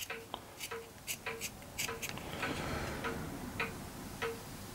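A clock ticking steadily, just under two ticks a second, with a few lighter irregular clicks and a brief soft rustle of small hand tools being handled on a workbench.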